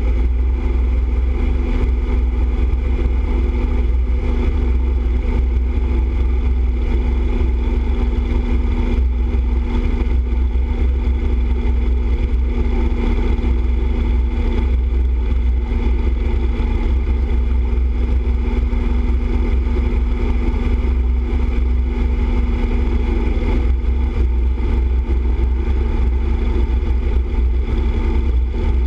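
Motorcycle cruising at steady highway speed: a deep, constant wind rumble on the bike-mounted microphone, with the engine's steady drone underneath.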